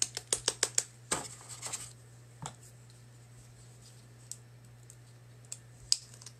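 A small plastic squeeze bottle of acrylic craft paint being shaken hard in quick strokes: about eight sharp clicks inside the first second, then a scratchy rustle and a few single clicks as the bottle is handled over the palette.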